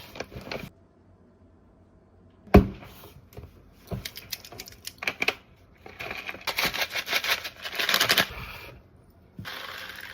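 Groceries and their packaging being handled: a sharp knock about two and a half seconds in, scattered clicks and taps, then a couple of seconds of crinkling near the middle to end.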